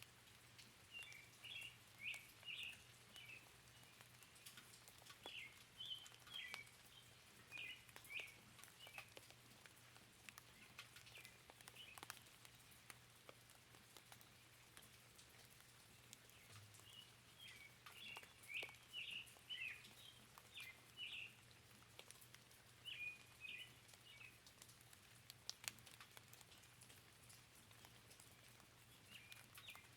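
Faint birdsong: clusters of short, quick chirps in bouts of a few seconds, over light scattered raindrop patter and a soft rain hiss.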